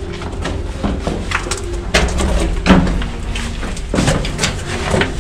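A bird cooing inside a rock cave, over a low rumble, with several scuffs and knocks as someone moves through the narrow passage.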